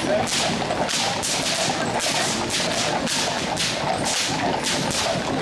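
Shod draught horses of a long harnessed team walking on asphalt: a running, irregular clatter of hoofbeats, several a second, over the low murmur of the street.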